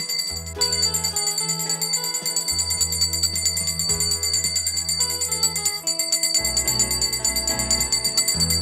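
Background music: rapid, steady bell jingling over held low notes and a slowly changing melody.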